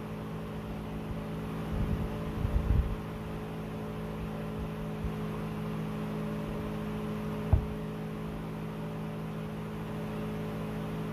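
Steady indoor mechanical hum at several fixed pitches, with a few soft low thumps about two to three seconds in and a single sharp tap about three-quarters of the way through.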